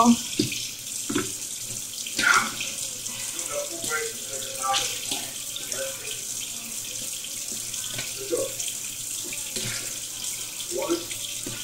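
Kitchen tap running steadily into the sink, with a few scattered knocks and clinks of a bowl and utensils being handled.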